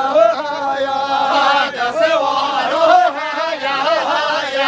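Men's voices singing a Kurdish folk melody without instruments for a halay line dance, the tune held and ornamented with wavering turns.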